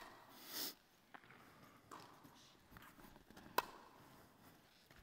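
Tennis rally with rackets striking the ball. There is a sharp hit right at the start, a short hissing noise just after, a few faint ticks of the ball bouncing, and a second sharp hit with a brief ring about three and a half seconds in.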